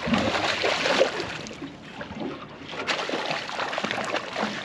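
A hooked sockeye salmon thrashing at the surface beside a boat while it is being netted, with water splashing and sloshing. The splashing is loudest in about the first second and comes again in shorter bursts later.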